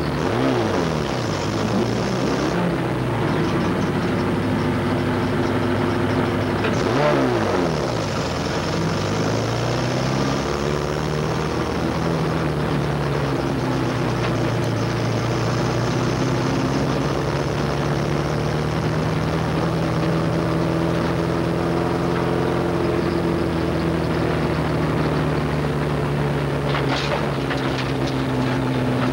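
Race pickup truck's engine heard from inside its cab. Its revs drop and climb again sharply twice in the first several seconds, then it runs at a steady, fairly low speed with only slight drifts.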